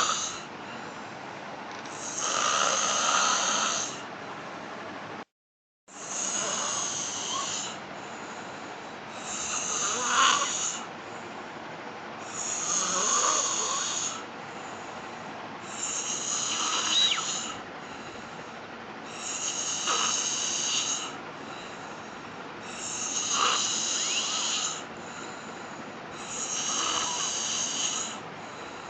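A woman snoring in deep sleep: rasping snores about one every three to four seconds. There is a brief cut to silence about five seconds in.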